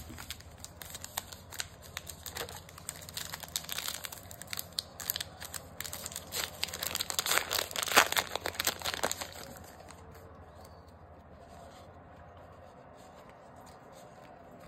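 A trading-card pack wrapper being torn open and crinkled by hand: dense crackling for about nine seconds, loudest just before it stops.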